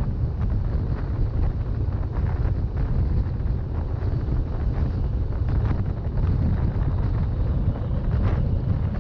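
Wind buffeting the microphone in a steady low rumble, over the running noise of an RhB ABe 8/12 "Allegra" electric train.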